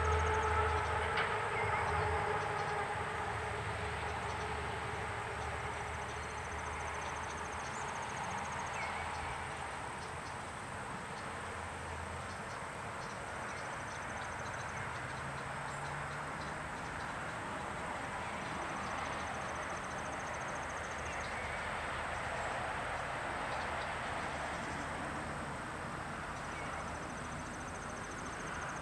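A passing vehicle: a low rumble with a steady hum, loudest at the start and fading over the first few seconds into a constant distant traffic hiss. A short, high, dry trill repeats every few seconds over it.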